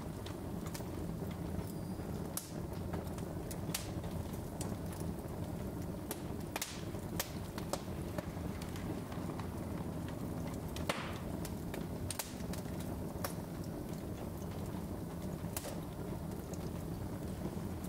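Wood logs burning on a fireplace grate: a steady low rush of flame with irregular sharp crackles and pops, the loudest pop about eleven seconds in.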